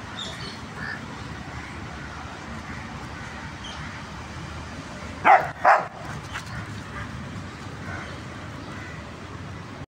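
A dog barks twice in quick succession, about half a second apart, a little past the middle.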